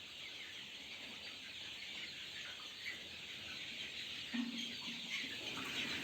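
A flock of farm chickens in a pen, with many small high chirps running on throughout and a few low clucks from about four and a half seconds in.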